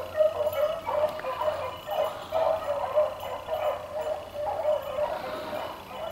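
A pack of beagles baying on a rabbit's trail: a steady string of repeated, overlapping hound barks.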